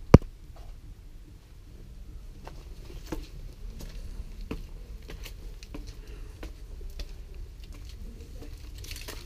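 A single sharp knock just after the start, then irregular footsteps tapping and scuffing on concrete steps and paths, over a low rumble.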